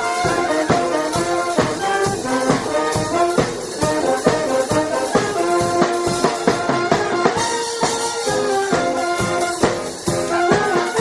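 Marching band playing: brass carrying a tune over a steady beat of bass drums.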